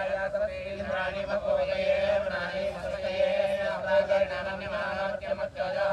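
Vedic priests chanting Sanskrit mantras together during a temple fire ritual, over a steady held tone.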